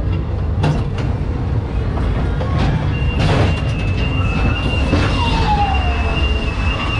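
Ghost train car rumbling steadily along its track, with a bang about three seconds in as it pushes through the doors into the dark section. A thin steady high tone comes in with the bang, and a short falling tone follows about two seconds later.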